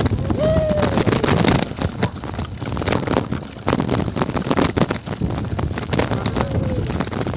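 Mountain bike clattering and rattling over a rough dirt trail on a downhill run: a dense, fast run of knocks and rattles from the frame and parts over bumps.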